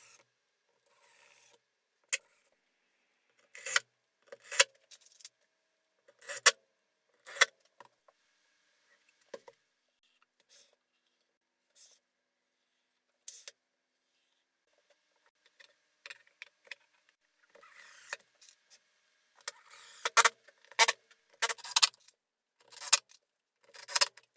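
Plywood parts being handled and set down: a scattered series of sharp wooden knocks and clacks, coming closer together near the end.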